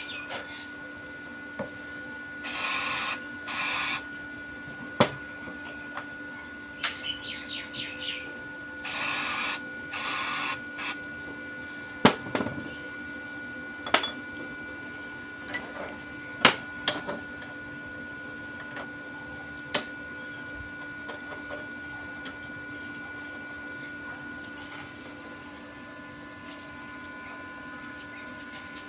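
Metalworking at a welding bench: two pairs of short hissing bursts, each about a second long, and a few sharp taps of metal, over a steady electrical hum.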